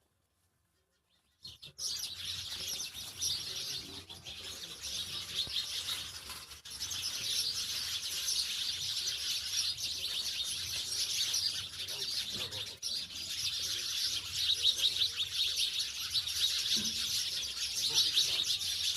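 House sparrows chirping steadily, many quick overlapping chirps in a constant chatter, starting about a second and a half in after a brief silence.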